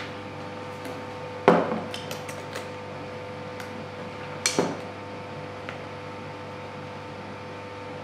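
Dishwasher running with a steady hum, an absurd noise. Over it come two sharp glass-and-metal clinks, about a second and a half in and again about four and a half seconds in, with lighter clicks between, as a glass coffee canister with a metal clip lid is handled and opened.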